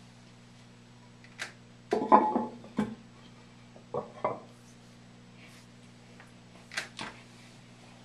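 Porcelain lid of a 1987 Kohler Wellworth toilet tank being handled and set back on the tank: a series of ceramic clunks and scrapes, the loudest about two seconds in, with further knocks near four and seven seconds. A steady low hum runs underneath.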